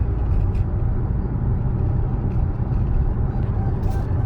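Steady low rumble of tyre, road and engine noise heard inside the cabin of a SsangYong Torres cruising at highway speed.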